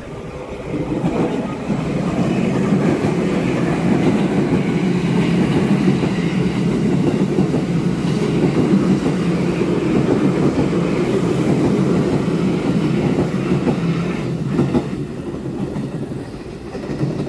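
Limited express electric train running past close along the platform: a steady rumble with wheels clattering over the rail joints, fading near the end as it moves away.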